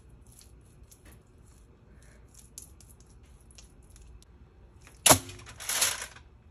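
Faint wet scraping and small clicks of a spoon and fingers spreading spice paste over raw beef. About five seconds in, a sudden loud crinkling of aluminium foil as a raw rib roast is handled on a foil-lined tray, lasting about a second.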